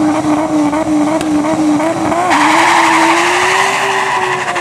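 Drag race car doing a burnout: the engine is held at steady high revs, creeping slowly higher, and a little over two seconds in the rear tyres break loose into a squealing hiss of wheelspin.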